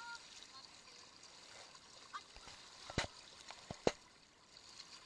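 Shallow floodwater trickling and sloshing as a hand net is worked through it to scoop small prawns and fish, with two short, sharp sounds about three and four seconds in.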